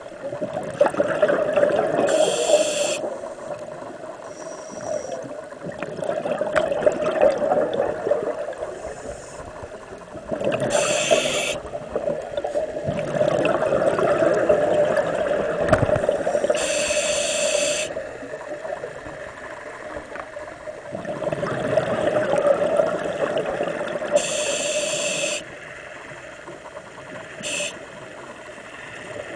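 Scuba regulator breathing underwater: about four short hissing inhalations through the demand valve, each followed by several seconds of exhaled bubbles rushing and gurgling past the microphone.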